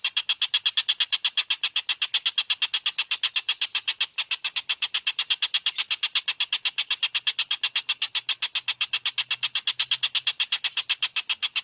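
Tengkek buto kingfisher calling: a fast, unbroken series of sharp, high notes at about eight a second, with a brief break about four seconds in.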